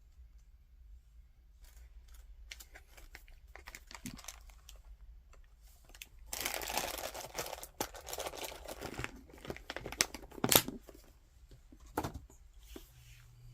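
Crinkling and rustling of packaging while small items are handled, with scattered light clicks. The loudest stretch of crinkling comes about six and a half seconds in, and sharp knocks follow around ten and a half and twelve seconds in.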